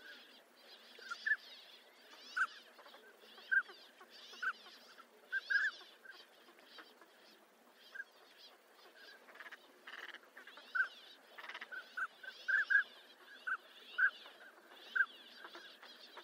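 Northern pintails calling: short whistled notes, irregular and sometimes in quick pairs, mixed with higher, hoarse chattering calls.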